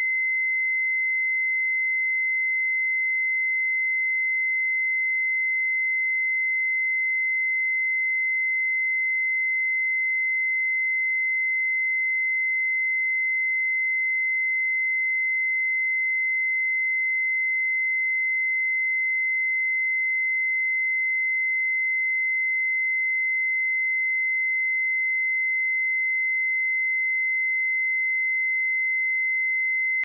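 A pure 2058 Hz sine-wave test tone, one steady high-pitched note held unchanged at a constant level.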